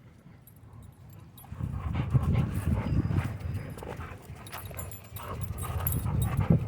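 Dog sounds close to the microphone, with no clear barks: low, uneven rumbling that picks up about one and a half seconds in, and scattered light ticks.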